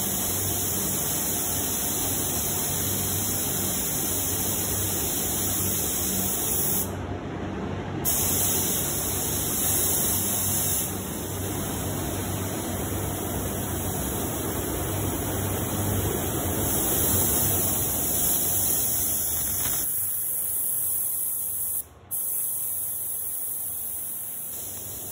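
Paint spray gun laying down clear coat: a steady hiss of atomising air and paint, broken briefly about seven seconds in and again near the end as the trigger is released between passes.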